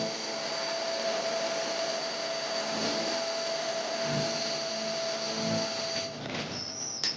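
An electric household appliance motor running with a steady whine, cutting off about six seconds in, followed by a sharp click near the end.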